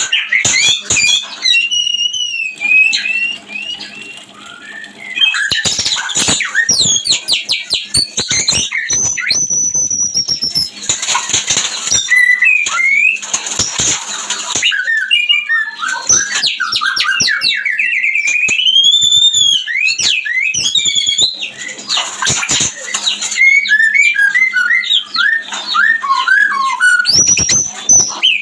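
White-rumped shama (murai batu) singing its breeding-season song. It is a loud, varied run of whistles, rising and falling glides and fast trills, with harsh chattering notes between.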